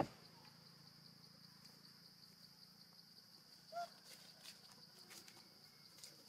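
Faint, steady high-pitched insect chorus. A sharp click at the very start and one short high call about four seconds in.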